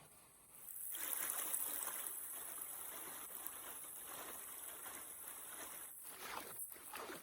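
Running stream or waterfall water: a steady, even rush that starts abruptly about a second in and changes near the end.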